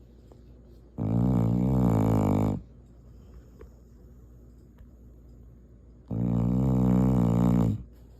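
Shar Pei dog snoring: two long, pitched snores, each about a second and a half, coming about five seconds apart.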